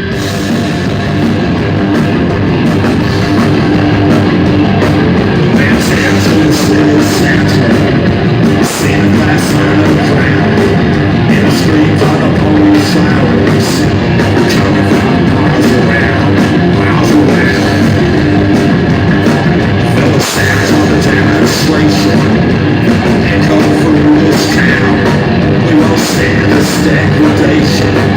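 Live punk rock band playing loud: distorted electric guitars, bass and a drum kit with regular cymbal and drum hits. The volume builds over the first couple of seconds, then holds.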